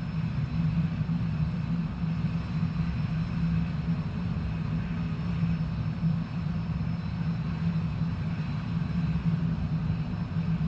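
Steady low road and engine rumble inside a moving car's cabin, with an even hum and no sudden events.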